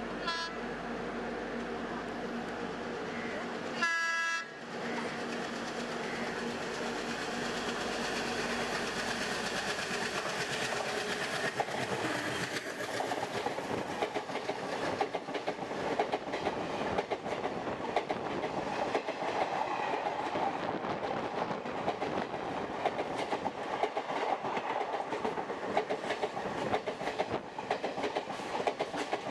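A train horn sounds briefly at the start and again, louder, about four seconds in. Then an Indian Railways passenger train passes close alongside at speed, its wheels clattering over the rail joints in a quick, dense rhythm under a rushing noise that builds and continues.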